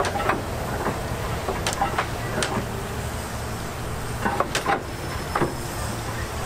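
Engine running with a steady low rumble, with sharp knocks and clicks scattered through, several of them close together about four to five seconds in.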